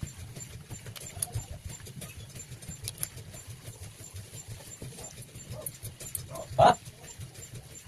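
A dog barks once, sharply, near the end, over a faint steady low hum.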